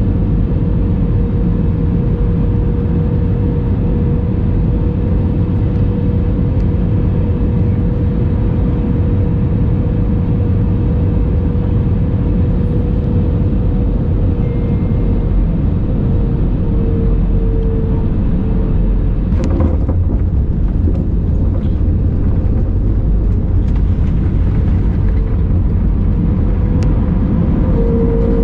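Airbus A321 cabin noise: a steady jet-engine rumble with a constant fan whine that dips slightly in pitch partway through and comes back up near the end. A single sharp click about two-thirds of the way through.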